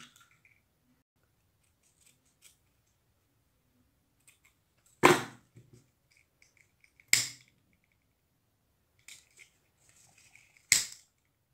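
A handheld lighter being struck three times: sharp clicks about two seconds apart, then nearly four, used to singe the cut end of a satin ribbon so it won't fray. Faint rustling of ribbon between the strikes.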